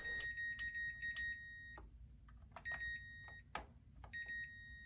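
Whirlpool Duet front-load washer control panel beeping in user interface test mode: a quick string of high electronic beeps with faint clicks as the cycle selector knob is turned, then two more beeps a second or so apart as a button is pressed. Each beep confirms that the knob or button is working.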